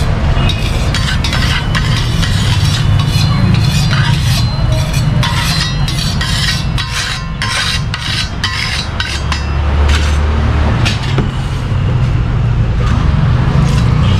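Metal spatula scraping and clicking against a large flat griddle (tawa), many quick strokes in the first two-thirds, over a steady low rumble.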